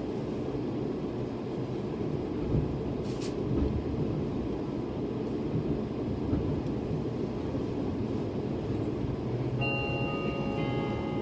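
Rumble and rattle inside a Meitetsu train car as it moves off slowly, with a couple of clunks a few seconds in. Near the end, a tune of clear ringing tones begins over the running noise.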